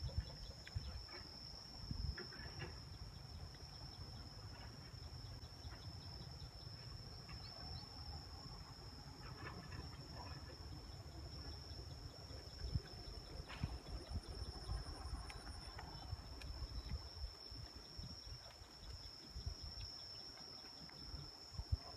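Insects chirring in one steady, unbroken high-pitched tone, over a faint uneven low rumble, with a few faint short calls midway.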